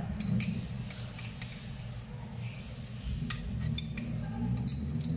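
A few light metallic clicks and scrapes of a hand tool gripping and turning a chrome faucet fitting, as a stiff old wall-mounted kitchen faucet is worked loose. A steady low hum runs underneath.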